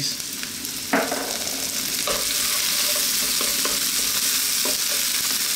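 Onion, garlic and frozen peas sizzling in oil in a non-stick frying pan while a wooden spoon stirs them. The sizzle is steady and grows a little louder after a knock about a second in, and a few lighter knocks follow.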